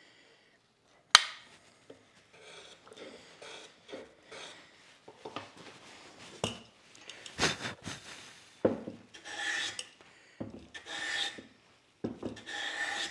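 Metal hand plane taking rasping strokes across the edge of a wooden block, several in a row near the end. A single sharp knock about a second in, as of a tool set down on the wooden bench.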